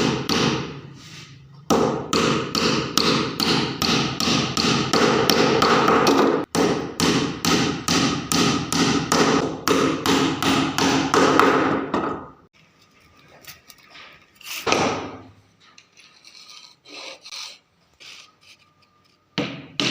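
A hand tool worked back and forth on wood in quick, regular strokes, about three a second, stopping about twelve seconds in; a few softer scattered knocks and scrapes follow.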